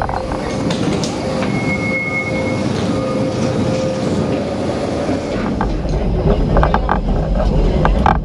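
Santa Teresa vintage electric tram running on its rails: a steady rolling rattle and rumble, with a thin high wheel squeal for about a second near the start. The low rumble grows heavier in the last few seconds.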